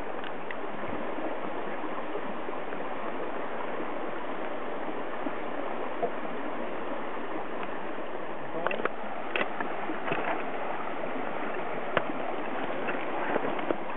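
Stream water running steadily, with a few short ticks in the second half.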